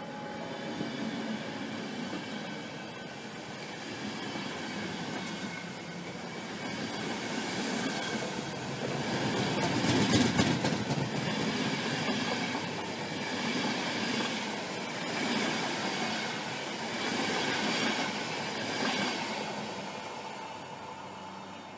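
Passenger coaches rolling past as a train pulls out, the wheels clacking in a steady rhythm over the rail joints under a high, steady squeal. It is loudest about halfway and fades near the end as the last coach draws away.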